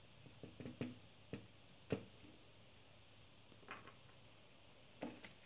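A handful of faint clicks and taps from hands handling the plastic parts of a partly disassembled chainsaw, over near silence; the sharpest tap comes about two seconds in.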